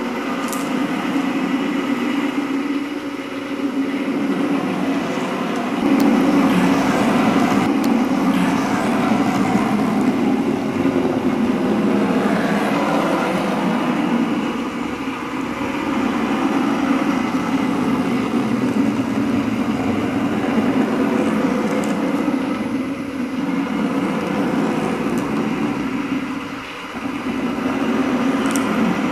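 Drawing machine running as its pen arm traces a pattern: a steady mechanical hum that swells and dips a few times.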